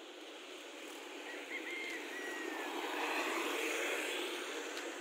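A passing vehicle: a steady rushing noise swells to a peak a little past the middle and then fades. A bird chirps a few times in the first half.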